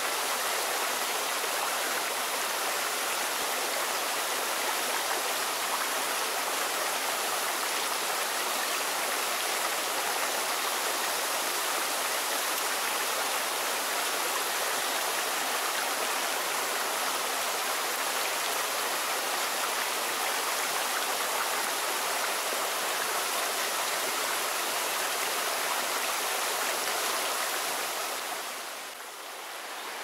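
Waterfall pouring down a rock face: a steady, even rush of falling water. The level dips briefly near the end.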